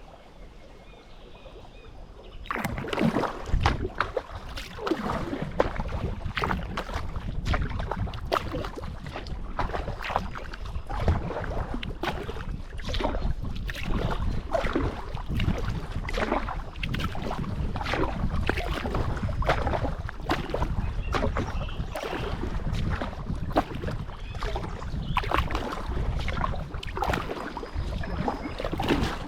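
Kayak on the water: paddle strokes splashing and water sloshing against the boat, starting about two and a half seconds in as a quick, irregular run of splashes over a steady low rumble.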